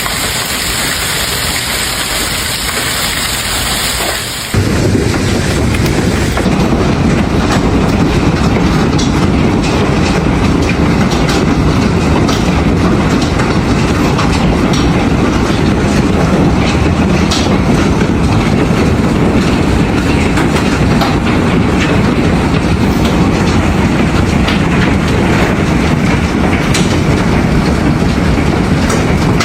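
Heavy rain and hail hissing, then from about four seconds in a louder, deeper hammering of dense hailstones on a hard surface, full of sharp ticks and knocks.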